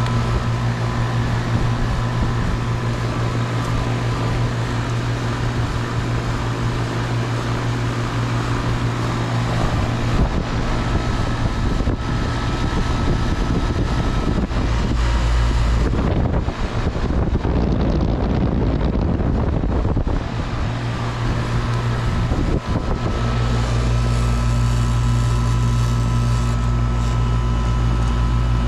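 Carrier central air conditioner's condensing unit running steadily, the compressor's hum under the whir of the condenser fan. A rougher low rumble comes in for several seconds mid-way.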